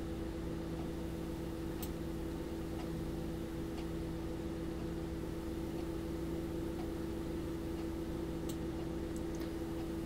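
Steady electrical hum and hiss of the recording background, with a few faint clicks about two seconds in and near the end.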